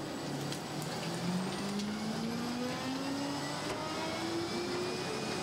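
Mud Dog 1200 hydro excavator truck running under load, its engine and hydraulic hum climbing slowly in pitch and levelling off near the end, as the machine works the ejector plate to unload the debris body.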